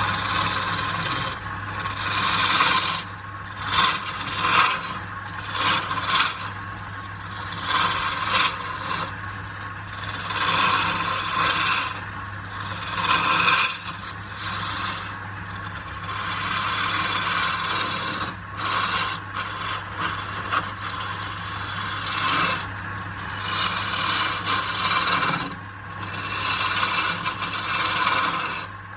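Wood being worked on a lathe: a loud, rough rubbing and scraping against the spinning wood that swells and eases every second or two, over the lathe motor's steady low hum.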